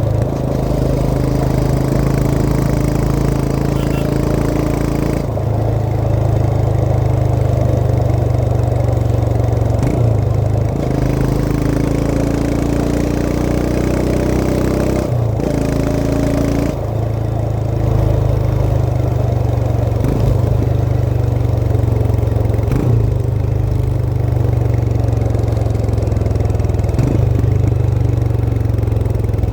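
Royal Enfield Himalayan 411's single-cylinder engine running steadily under way, heard from on board the motorcycle. Its note changes several times as the rider varies speed.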